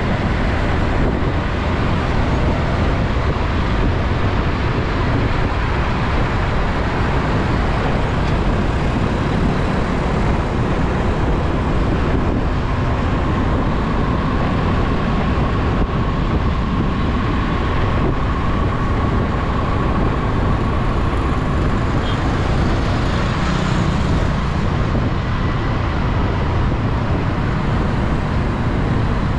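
Steady road traffic noise: a continuous low rumble of passing vehicles with no distinct events, and a faint steady tone through the middle.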